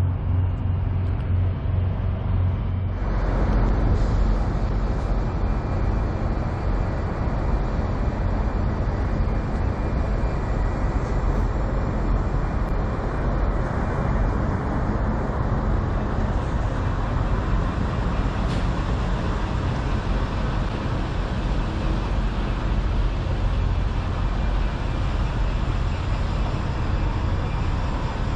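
Steady rumble of idling semi-truck diesel engines, turning louder and hissier about three seconds in.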